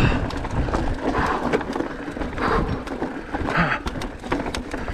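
Enduro mountain bike rolling down a loose, rocky trail: tyres crunching over stones, with irregular clicks and knocks as the bike rattles over the rocks.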